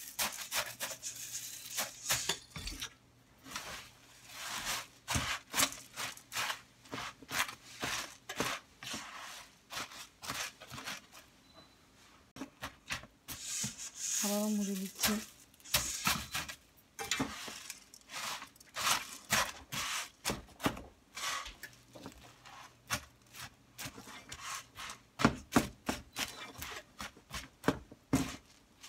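Silicone spatula stirring and scraping puffed rice through melted marshmallow in a nonstick frying pan: a steady run of short scrapes and dry rustles. About halfway through, more puffed rice pours in from a metal colander with a longer rustle.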